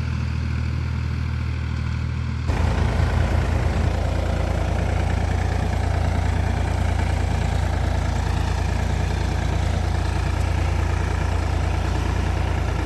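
An engine running steadily at idle, getting louder and fuller about two and a half seconds in.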